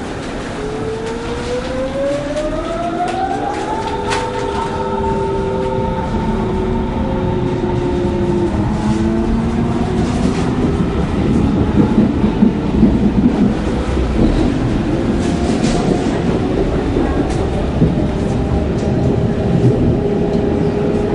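Berlin S-Bahn electric train accelerating away from a station, heard from inside the carriage. The traction motors give a whine that rises in pitch over the first four seconds, then settle into steady tones over the growing rumble and clatter of wheels on rails, loudest about halfway through.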